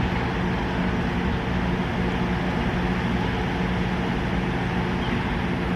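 An engine running steadily: a constant low hum that holds its pitch, over a steady wash of background noise.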